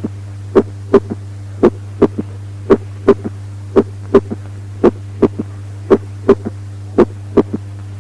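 Recorded heart sounds with a third heart sound: each cycle is a first and a second heart sound followed closely by a soft, faint third sound, giving a three-beat rhythm about once a second. A steady low hum runs underneath.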